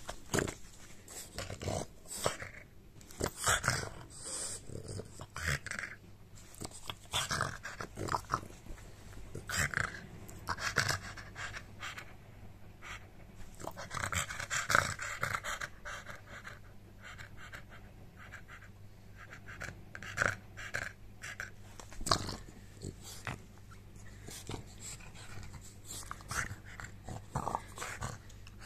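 Pug making an irregular run of short snorts, grunts and pants, with a longer huffing stretch about halfway through: an excited pug begging for his ball.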